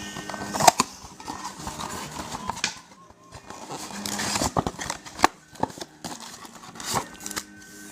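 Trading cards and packs being handled on a table: scattered sharp clicks and taps, the two loudest about a second in and in the middle.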